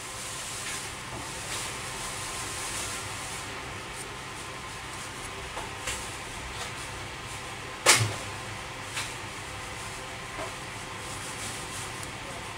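Wooden popsicle sticks being handled and pressed together by hand, with a few light wooden clicks and one sharp knock a little past halfway, over a steady hiss.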